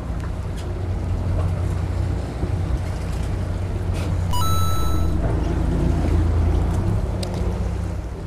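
Fishing boat's engine running steadily, a low hum, with some wind noise. About four and a half seconds in, a short high electronic-sounding tone lasting under a second, and a few light clicks.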